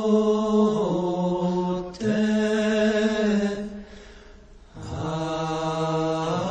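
Chanted vocal music: long held notes over a low sustained tone, shifting pitch every second or two, with a short lull a little past halfway.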